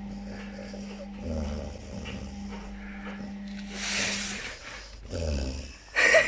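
Japanese Akita dog snoring in its sleep: low rumbling snores about a second in and again about five seconds in, with a long airy breath between them, then a short, louder sudden sound near the end.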